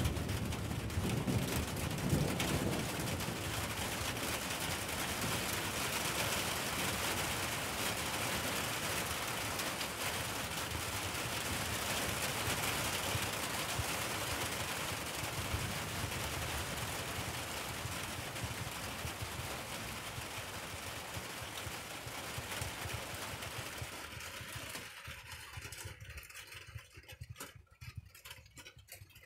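Rain pouring steadily, a dense crackle of drops, with a low rumble of thunder in the first couple of seconds. The rain eases off gradually and thins to scattered drops near the end.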